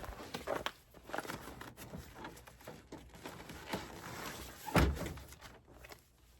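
Handling noise while fitting a truck bed tent: irregular rustling and clicks of tent straps and fabric, with a single louder thump about five seconds in.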